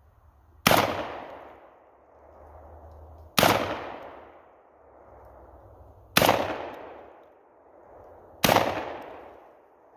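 Four shots from a Panzer Arms AR-12 semi-automatic 12-gauge shotgun, fired one at a time about two to three seconds apart. Each blast rings off for about a second. The fourth shot empties the magazine.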